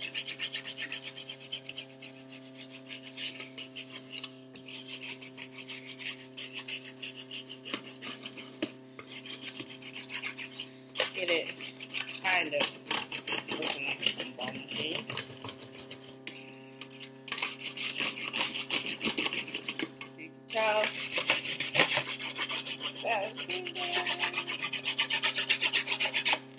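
A brown crayon shading back and forth over a foam plate: rapid, scratchy scribbling strokes with a few short pauses. A steady refrigerator hum runs underneath.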